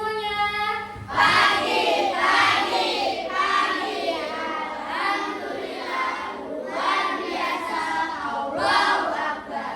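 A group of children singing together in unison, in phrases about a second long.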